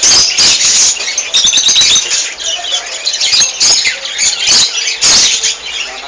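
A flock of small caged birds calling all at once: a loud, dense, unbroken chatter of shrill chirps and squeaks.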